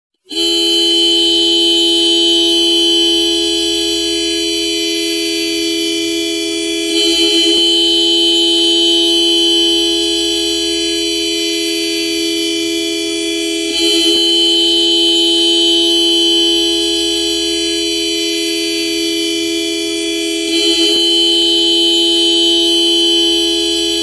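Car horn held down in one long, unbroken blare of steady pitch, with a brief flutter and slight swell about every seven seconds.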